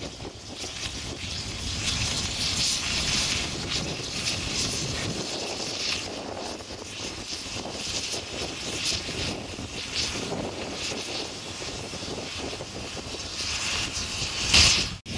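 A steam locomotive working close by: a steady rush of steam exhaust mixed with the rumble of the wagon's wheels on the rails. A louder burst of noise comes near the end and then cuts off abruptly.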